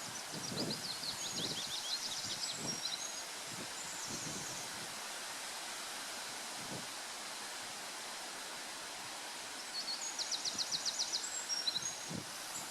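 A small songbird sings two short phrases of quick high notes, one near the start and one about ten seconds in, each ending in a fast rattling trill. Under them runs a steady outdoor hiss, with soft low thuds of footsteps on the woodland path.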